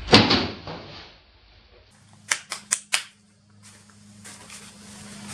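A single loud, sharp crack at the start, ringing off over about a second. A little over two seconds in come four quick clicks.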